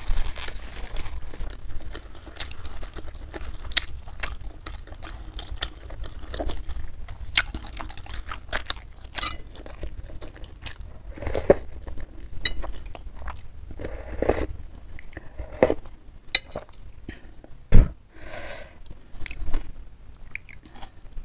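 Close-miked chewing and mouth smacking on beef meatball soup with rice vermicelli, with scattered clicks of a spoon and fork against the bowl. One sharp knock, the loudest sound, comes about three-quarters of the way through.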